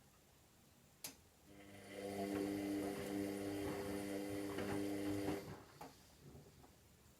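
Washing machine motor starting with a click about a second in, then humming steadily for about four seconds as it turns the drum during a synthetics warm wash, with faint knocks from the tumbling load, before stopping.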